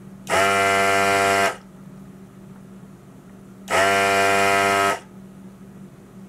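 Hakko 808 desoldering gun's vacuum pump buzzing twice, about a second each, as its trigger is pulled to suck molten solder off a capacitor lead on a circuit board.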